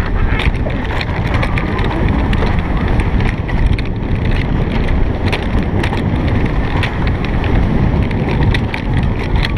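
Alpine coaster sled running fast down its steel tube track: the wheels rumble and rattle on the rails, with frequent clacks, over a steady rush of wind on the microphone.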